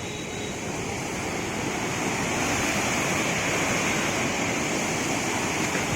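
Floodwater of the swollen Kapili River rushing in a steady, even noise, growing a little louder over the first couple of seconds.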